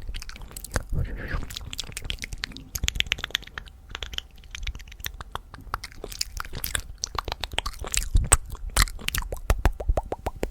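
Fast ASMR mouth sounds: rapid wet tongue clicks and lip smacks in quick, irregular runs. Near the end they settle into an even run of clicks, about five a second.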